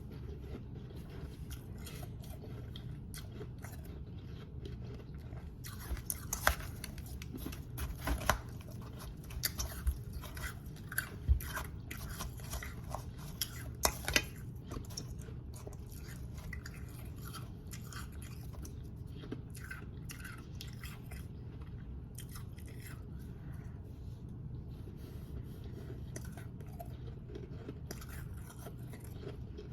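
Close-miked biting and chewing of powdery ice: crisp, irregular crunches, densest and loudest in the first half and sparser toward the end, over a steady low hum.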